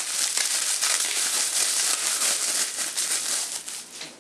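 Bubble-wrap packaging crinkling and rustling continuously as it is pulled open around a plastic lens cap, dying away near the end.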